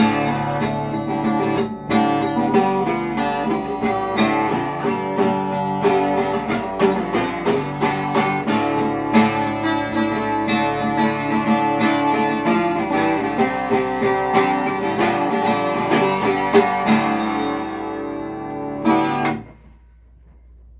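Acoustic guitar played with quick picked notes and strums, a busy run of notes that stops with a final chord near the end.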